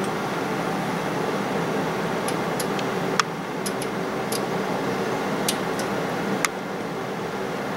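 A steady fan hum, with about ten sharp computer mouse clicks scattered through the middle of the stretch, two of them louder than the rest.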